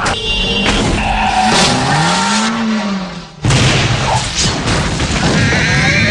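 Car crash sound in a drink-driving advert: a vehicle skidding, then a sudden loud impact about three and a half seconds in, over music.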